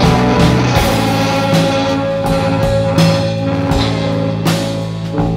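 Rock band playing live with electric guitars, electric bass and a drum kit in an instrumental passage, with no singing. A long note is held over the drums from about a second in.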